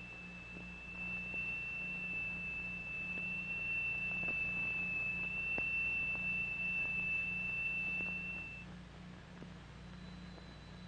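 Triangular steel plate driven by a crystal attached underneath, sounding one steady high-pitched tone as it vibrates. The tone stops about eight and a half seconds in, and a fainter, higher tone begins near the end. A low hum runs underneath.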